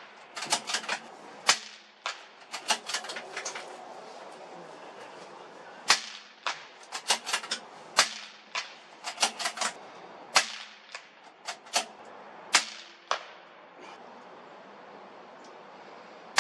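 A string of sharp .22 LR rimfire rifle shots, irregularly spaced: a louder crack about every two seconds, with many fainter cracks in between, thinning out in the last few seconds.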